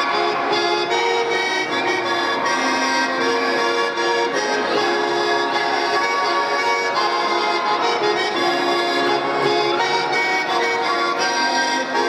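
Accordion playing a Russian folk tune in held, reedy chords, steady throughout.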